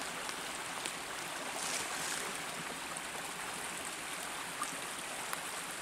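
Steady rush of running water, as from a small snowmelt stream.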